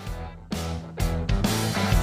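Background music with guitar and a steady beat, coming in at the start.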